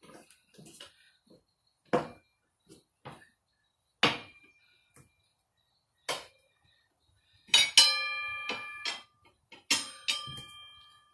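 Steel tire spoons knocking against a motorcycle wheel rim as the tire bead is levered on by hand: sharp metallic clinks about every two seconds, then two louder ringing clangs near the end.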